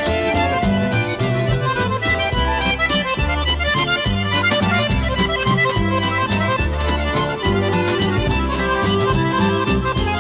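Background music: an upbeat accordion tune with fiddle over a steady rhythmic bass.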